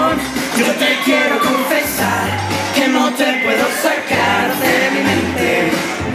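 Pop-rock song played loud over a PA system, with a young man's voice singing into a handheld microphone over the backing.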